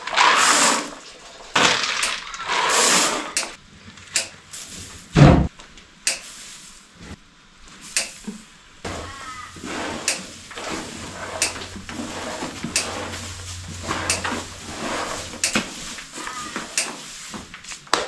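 Dry grain feed poured into a bowl in two rushing pours. Then comes a heavy thump, followed by scattered small clatters and rustles.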